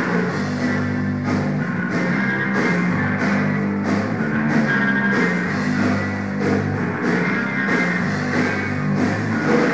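Rock band playing live at a soundcheck: drum kit keeping a steady beat under electric bass and guitar, with no singing.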